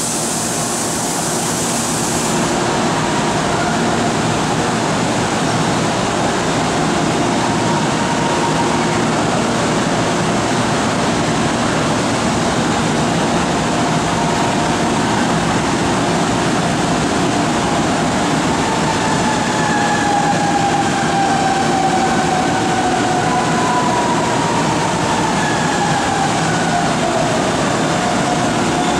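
Electric commuter trains in a large station: a steady rumble and hum, and in the second half several electric whines sliding down in pitch, as a train's traction motors slow.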